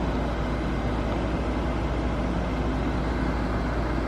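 Steady low mechanical rumble with no distinct events.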